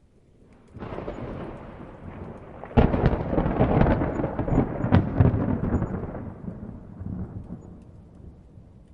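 Thunder: a rumble begins about a second in, a loud crack comes near three seconds, and it rolls on with more cracks before fading away over several seconds.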